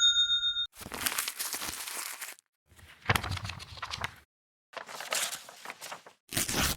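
Three short crackling, crunching noises, one after another with brief gaps, each a second or so long. The ringing tail of a chime fades out at the very start.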